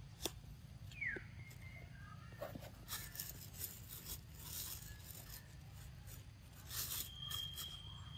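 Long-tailed macaque eating soft mango flesh with its mouth against the fruit: from about three seconds in, a run of wet smacking and tearing sounds. A short falling whistle sounds about a second in, and a steady high whistle near the end.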